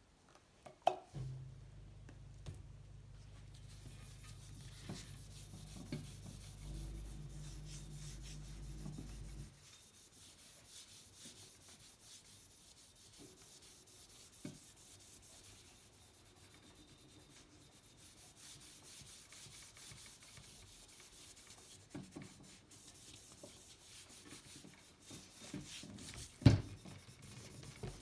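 Hand rubbing of T-cut scratch remover into the old painted steel of a bicycle frame: a faint, steady scratchy rubbing that goes on and on. A low hum sits under the first third, and a single sharp knock comes near the end.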